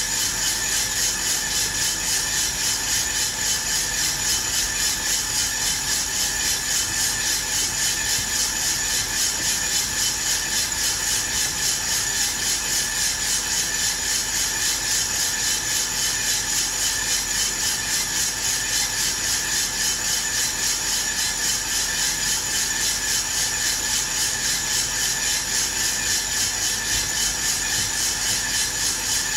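Aillio Bullet R1 V2 drum coffee roaster running, coffee beans tumbling and swishing in the rotating drum with the fan running, a steady, evenly pulsing rustle. The beans are early in the roast, still drying with no cracking yet.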